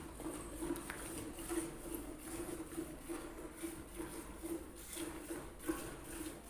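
Cow being milked by hand: rhythmic squirts of milk into a pail, about two a second.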